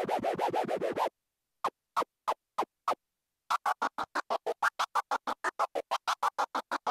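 Transformer scratch: a vinyl record scratched on a turntable while the Numark Scratch mixer's Mini Innofader crossfader chops the sound on and off. It starts with fast stutters about seven a second, drops to five single cuts about a second in, then stutters fast again, each cut dropping fully to silence.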